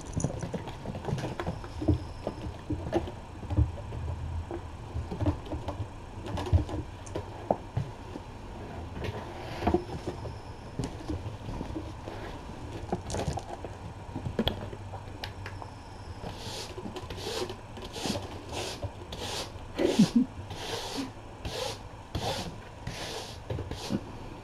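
Kittens playing on a rug and among toys: scattered soft thumps, knocks and scuffles. About two-thirds of the way in, a steady run of short rustling scrapes starts, about two a second.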